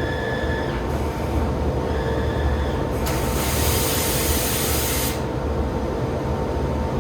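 Biesse Brema EKO 2.1 vertical CNC machining centre running with a steady hum and a higher whine that comes and goes. About three seconds in, a loud hiss starts and lasts about two seconds, then cuts off.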